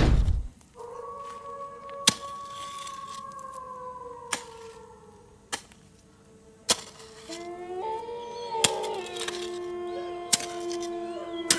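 Animal howling: a long howl that slowly falls in pitch, joined by several overlapping howls from about seven seconds in. Over it come sharp chopping strikes of a hoe or shovel into soil, about seven in all, with a heavy hit at the very start.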